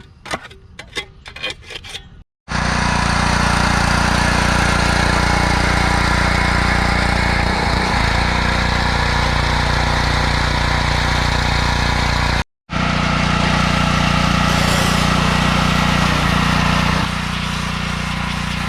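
A quick series of scrapes and clicks from barnacles being scraped off a boat hull. Then a power washer runs steadily and loudly, a machine hum under the hiss of the spray, with a brief break about midway.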